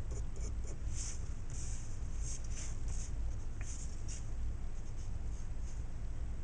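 Pencil scratching on paper in short, irregular light strokes as a circle is outlined, over a steady low hum.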